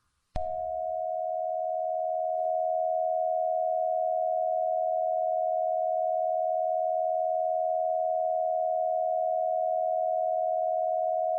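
A steady electronic alert tone of two close pitches. It starts abruptly about half a second in, holds unchanged and cuts off at the end: the emergency alert attention signal that comes before the spoken warning.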